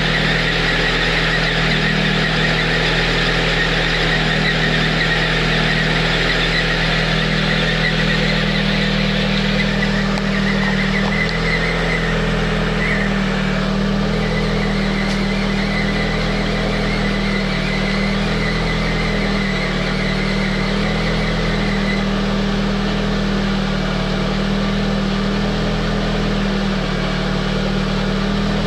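Lada Priora 16-valve engine idling cold with a high whistle from the timing-belt area that weakens, comes and goes, and dies away about two-thirds of the way through while the idle runs on steadily. The whistle comes only on a cold engine in frost and always clears after a few minutes of running; the owner suspects the timing belt, its idler rollers, the water pump or the alternator belt, all still factory originals.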